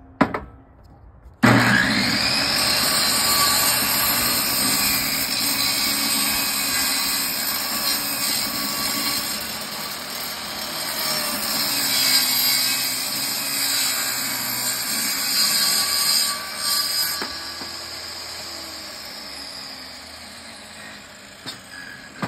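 A couple of knocks, then a portable table saw switches on about a second and a half in and runs loudly while its blade rips a very thin layer off the weathered face of an old 4x4 post. Near the end the motor's pitch falls and the sound fades as the saw winds down.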